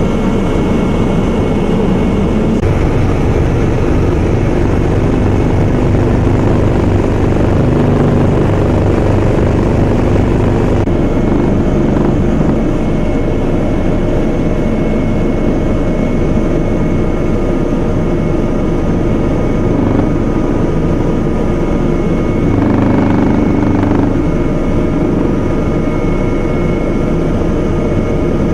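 Steady helicopter cabin noise: engine and rotor drone from inside the aircraft, with a constant high whine over it.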